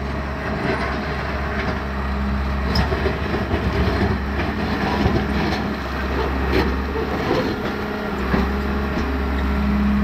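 Caterpillar D4C bulldozer's diesel engine running as the dozer pushes a pile of broken shale, with its steel tracks clanking and the rocks scraping and clattering in front of the blade.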